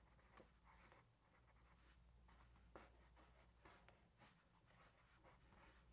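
Very faint scratching of a pen on paper as cartoon lines are drawn, in a few short strokes.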